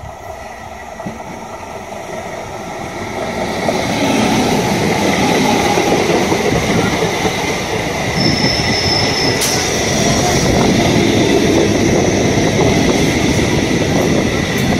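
Indian Railways EMU local train approaching and passing close by. Its running noise builds over the first few seconds into a steady, loud rumble and rattle of wheels on rail, with a thin steady whine above it. A brief high squeal comes about eight seconds in and ends with a sharp click.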